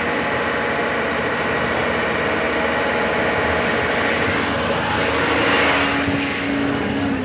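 Excavator's diesel engine running steadily close by, a continuous drone that swells briefly about five seconds in.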